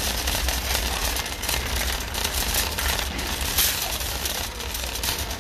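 Wire shopping cart rolling over a concrete floor, its wheels rumbling steadily and the metal basket rattling and clicking throughout.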